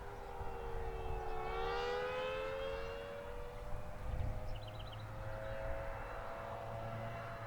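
Federal Signal Thunderbolt 1000T outdoor warning siren sounding the attack signal with its blower not working: a two-note wail that dips in pitch, then climbs slowly, swelling as the rotating horn sweeps past.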